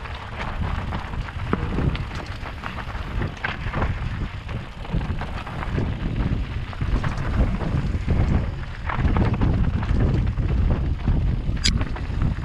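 Wind buffeting the microphone of a mountain bike rider's camera as the bike rolls over a rocky trail, with frequent clicks and rattles from the tyres and bike, and one sharp click near the end.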